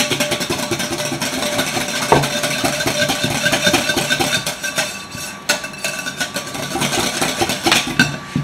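Wire whisk beating eggs and buttermilk in a glass bowl: a fast, even run of clicks and scrapes against the glass, with a few louder knocks.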